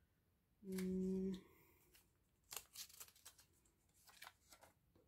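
A short hum from a woman's voice about a second in, then a run of faint clicks and rustles as plastic photocard sleeves and binder pages are handled and pulled back.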